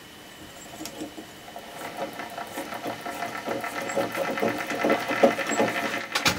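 A treadle sewing-machine base being pedalled, its flywheel, belt and pulley stack turning with a rhythmic clatter that grows steadily louder as it picks up speed. There is a sharp knock near the end.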